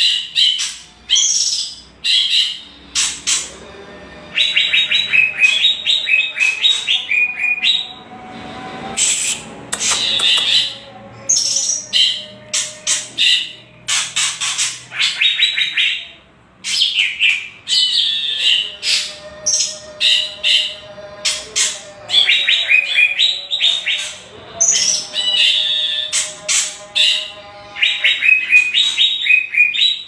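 White-rumped shama and greater green leafbird calling in rapid rattling 'kretekan' runs, about ten clicks a second, stepping down in pitch, mixed with short high whistles. Kretekan is the birds' agitated, challenging call.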